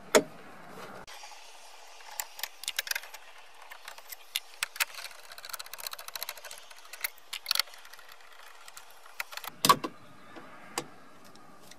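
Small metallic clicks and rattles of a hand nut driver backing out 7 mm screws from a dashboard screen's metal mounting bracket, with a few louder sharp clicks, the strongest near the end.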